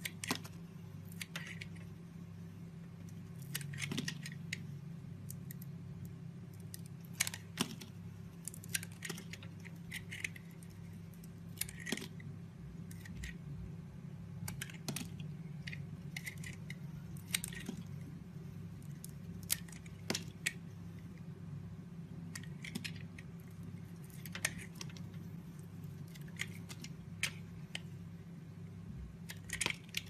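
Knife blade cutting into a bar of soap: irregular crisp cracks and crunches as chips and slices break away, about one or two a second, over a steady low hum.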